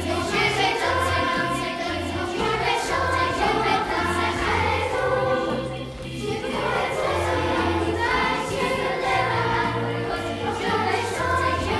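A children's choir singing together over instrumental accompaniment that carries a steady, stepping bass line, with a short break in the singing about halfway through.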